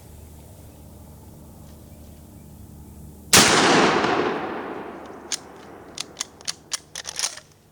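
A loud shotgun shot about three seconds in, its report rolling away and fading over about two seconds. A string of short sharp clicks and knocks follows near the end.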